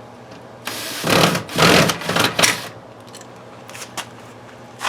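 Power drill running in a few short surges for about two seconds, then stopping.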